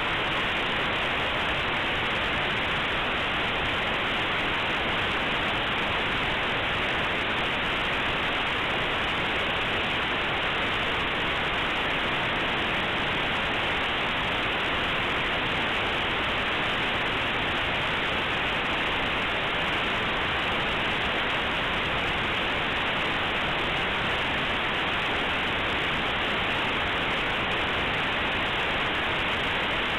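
Compressed Linux kernel image played as raw audio through aplay: a steady, unbroken hiss like radio static. The compressed data is close to random, so it comes out as plain noise.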